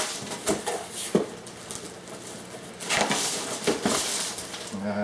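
Cardboard and packing paper rustling and scraping in irregular bursts, with a few light knocks and clicks, as a stapled shipping box is unpacked by hand.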